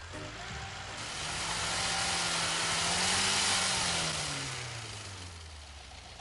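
An engine revving up over a couple of seconds, then easing back down, its pitch rising and falling under a broad rushing noise.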